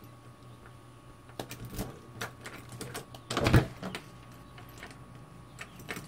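Metallic clicks and rattles of a Schlage keypad deadbolt and door handle being worked by hand. One louder clunk comes about three and a half seconds in as the door is pulled open.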